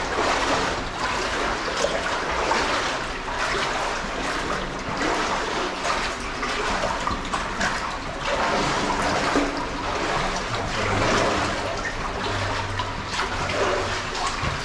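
Water of a culverted brook trickling and splashing, rising and falling unevenly.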